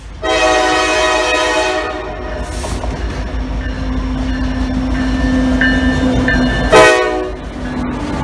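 Norfolk Southern diesel locomotive's air horn sounding one long blast near the start and a short blast near the end, over the steady low rumble of the diesel freight train approaching and passing.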